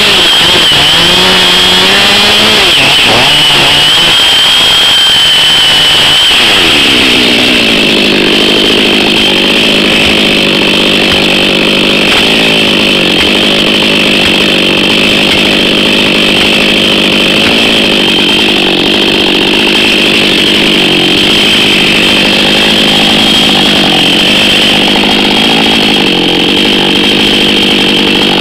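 Husqvarna 555 two-stroke chainsaw running at high revs, cutting into the trunk of a dead ash. The engine note wavers at first, falls about six seconds in, and then holds steady with small dips.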